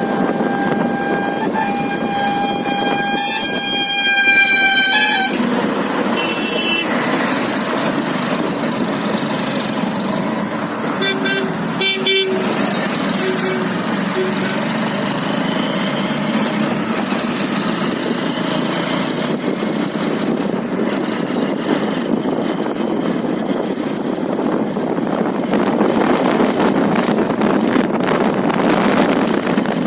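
A horn sounding one long steady note for about five seconds, then a few shorter toots, over a steady rushing noise.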